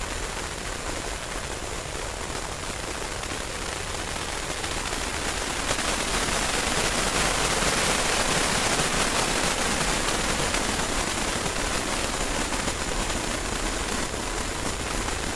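Harsh noise music: a dense wall of static hiss filling the whole range, swelling brighter about six seconds in and easing back after, with a thin high whine held steady beneath it.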